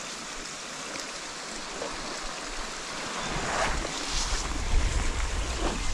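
Steady rush of running water from a garden stream, with wind buffeting the microphone as a low rumble from about three seconds in.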